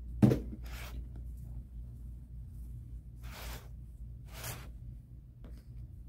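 Hands working nautical rope onto a planter pot: a sharp thump just after the start, then three short rustling scrapes of rope being pressed and rubbed into place. A steady low hum runs underneath.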